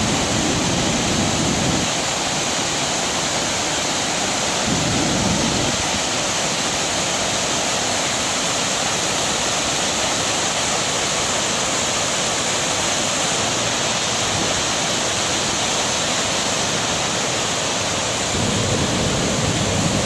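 Waterfall rushing steadily, with a few brief low rumbles near the start, about five seconds in and near the end.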